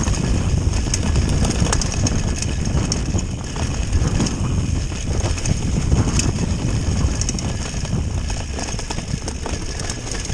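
Mountain bike ridden fast downhill on a muddy, leaf-covered dirt trail: a continuous heavy rumble of wind buffeting the camera's microphone and tyres on the ground, with frequent clicks and rattles from the bike over bumps.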